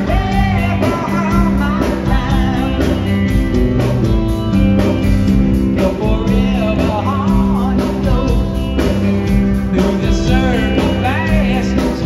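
Live rock band playing through the PA: a male lead vocal sung into a handheld mic over strummed acoustic guitar, electric bass and drums.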